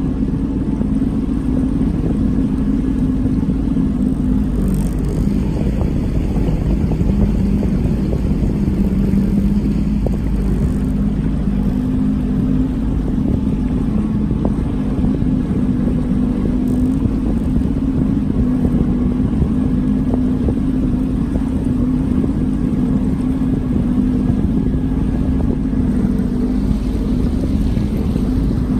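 A boat motor running steadily at an even speed, a low, constant hum with no change in pitch.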